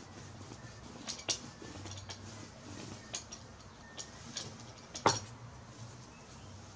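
Light clicks and taps from a small paint roller being worked over cloth and set down on a board, with one sharper tap about five seconds in.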